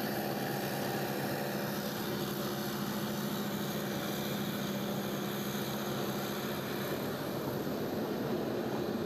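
Passenger train running, heard from on board the coach: a steady rumble with a low, even hum.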